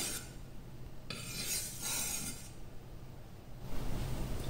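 Steel wakizashi blade scraping along a wet high-grit whetstone as it is sharpened: a rasping stroke ending just at the start, then another long stroke a little over a second in, lasting about a second and a half.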